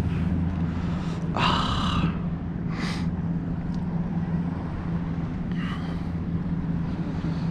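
Steady low hum of a boat motor over water and wind noise, with a sharp breath or gasp about one and a half seconds in and softer breaths later.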